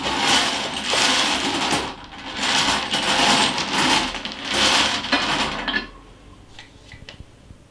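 Numbered balls rattling and tumbling inside a hand-cranked wire bingo cage as it is turned, in surges about once a second. The rattling stops about six seconds in, leaving a few faint clicks.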